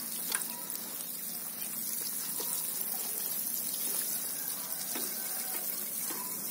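Water showering from a watering can's rose onto loose soil and seedlings: a steady, even spray hiss during a thorough watering.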